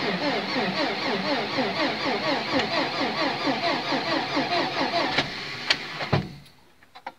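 Carbureted Lada 21074's four-cylinder engine running at a fast idle at −40 °C just after a cold start, its note wavering up and down several times a second. About six seconds in the sound breaks off with a couple of clicks and drops almost to silence.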